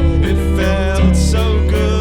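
Live band playing a song: guitar over a heavy bass line and drum hits, with a voice singing the melody.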